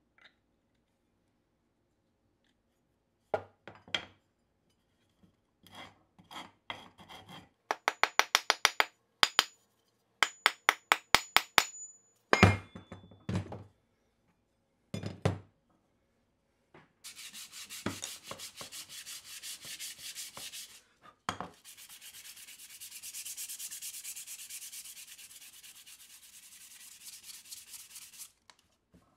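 Knocks on wood, some single and some in quick runs, as the broad axe head is worked onto its new wooden handle; then, from about halfway, a rasp scraping the wooden handle in quick strokes for around ten seconds to fit it to the head's eye.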